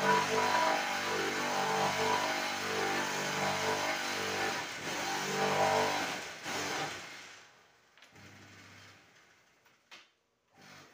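Electric vibrator motor on a 10-block concrete block press running steadily, shaking the mould full of concrete mix to compact it. It winds down and stops about seven seconds in.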